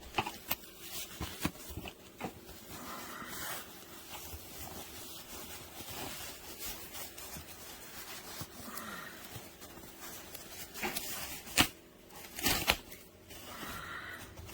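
Unpacking a stainless steel shower head extension arm and its packaging by hand: rustling, scraping and scattered sharp clicks and knocks, the loudest a little before and after about 12 seconds in.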